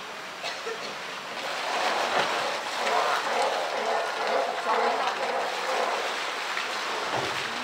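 Steady splashing of a water jet spraying into the polar bear pool, with a murmur of visitors' voices in the background.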